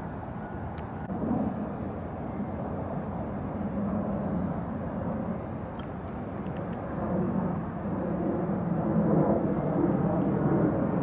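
Distant engine rumble, steady at first and swelling louder over the last few seconds.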